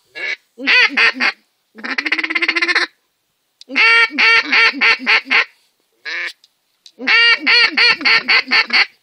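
Mallard-style duck call blown in loud runs of quacks: a short run near the start, a fast rattling chatter about two seconds in, then two longer runs of quacks with a single quack between them.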